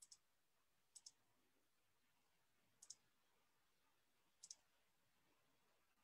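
Four faint double clicks, like a computer mouse being clicked, spaced one to two seconds apart against near silence.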